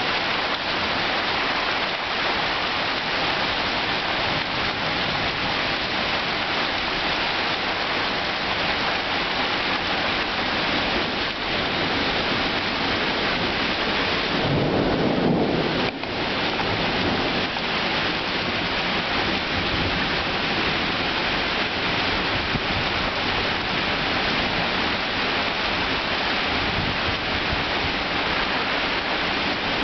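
Heavy rain pouring steadily in a severe thunderstorm. A rumble of thunder swells up about halfway through and lasts a second or two.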